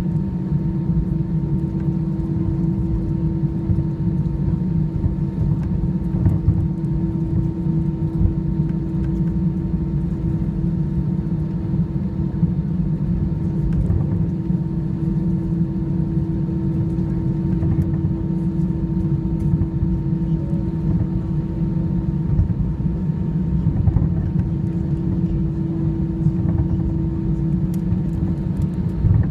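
Cabin noise of an Airbus A320-214 taxiing: its CFM56-5B engines at idle give a steady hum over a low, constant rumble, with no change in power.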